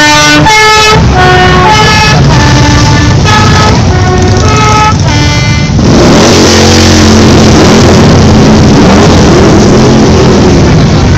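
Harley-Davidson V-twin touring motorcycles rumbling past at parade pace, close enough to overload the microphone. Over the first half, a tune of short, steady notes plays above the engines. About six seconds in, the tune gives way to a louder, rougher wash of engine noise.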